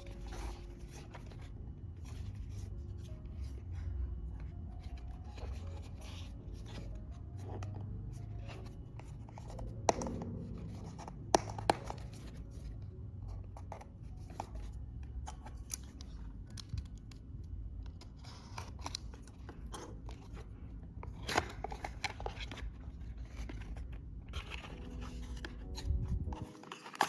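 Hands handling product packaging: rubbing, scraping and rustling of cardboard and plastic, with a few sharp clicks, the loudest three coming together about ten to twelve seconds in.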